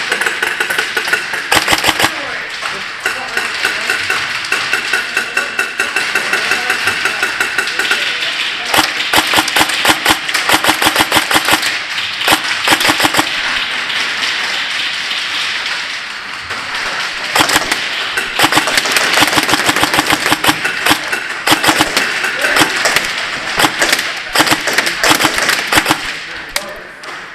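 Electric airsoft guns firing in repeated rapid bursts, with BBs smacking against wooden and plywood barricades. The bursts come on and off, with the densest runs partway through and again near the end.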